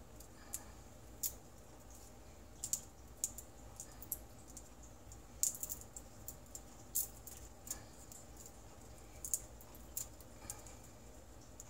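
Papery garlic skins crackling as cloves are peeled by hand: faint, irregular crisp clicks.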